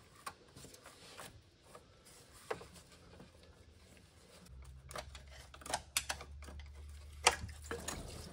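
A screwdriver clicking and scraping on the clamp of a coolant hose as the hose is worked off a BMW N55 engine's oil filter housing, with some coolant dripping out. A low hum sets in about halfway through.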